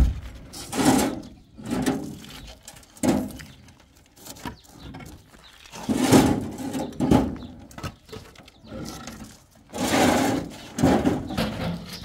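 Hollow concrete blocks being handled as they are unloaded from a truck bed: irregular knocks and scrapes of block against block.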